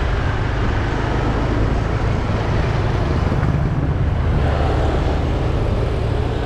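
Steady riding noise from a motor scooter under way, heard from the rider's seat: the small engine running and a constant rush of wind and road noise, with most of the rumble low down.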